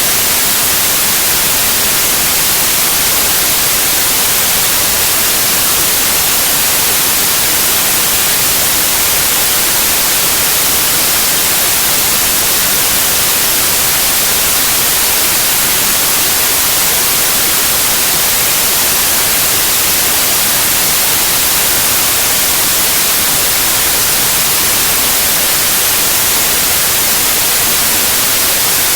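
Synthetic white noise: a steady, loud, unchanging hiss, brightest in the treble.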